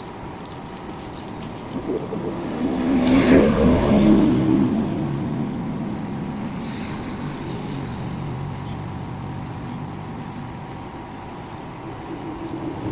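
A motor vehicle passing by, swelling to its loudest about three to four seconds in and then fading to a steady background.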